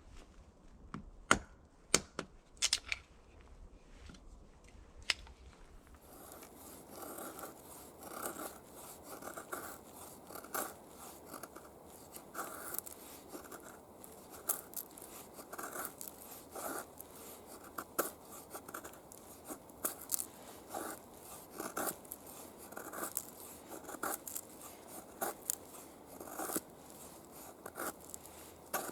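Hand tool working wood: a few sharp clicks, then from about six seconds in a steady run of short rasping cutting strokes, about one or two a second.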